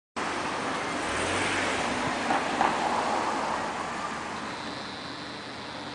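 Steady car noise without a clear engine note, louder for a moment between two and three seconds in and easing off after about four seconds. A faint high whine comes in near the end.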